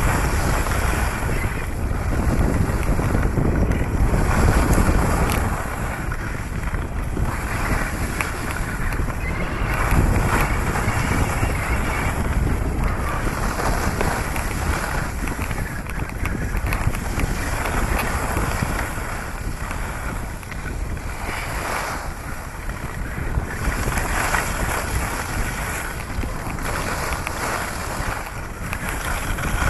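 Wind buffeting the microphone: a steady rushing roar that swells and eases every few seconds.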